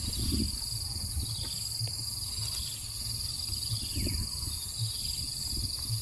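Steady, unbroken high-pitched drone of insects, over a low rumble.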